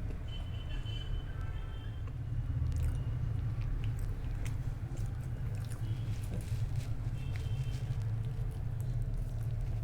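A person chewing food with small wet mouth clicks, over a steady low hum.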